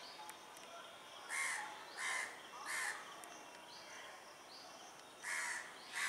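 A crow cawing: three caws in quick succession from about a second and a half in, then two more near the end, over faint background chirping.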